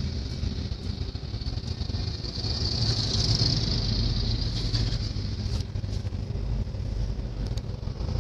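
Steady expressway traffic noise heard from a moving vehicle: a low road rumble under tyre and wind hiss. A large vehicle passes close alongside, swelling the hiss to its loudest about three seconds in.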